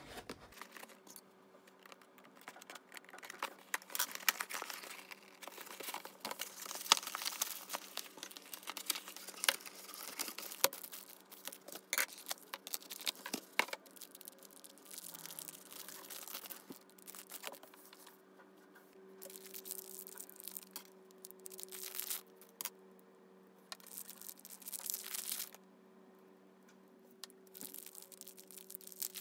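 Cardboard box and plastic packaging being opened by hand: crinkling, tearing and crackling plastic, dense for the first half, then in separate rustling bursts. A faint steady hum runs underneath.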